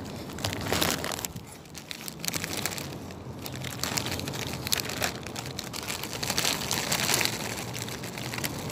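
Crinkling of a plastic snack bag and crunching of Saladix snack crackers as they are handled and eaten, an irregular crackle with no steady rhythm.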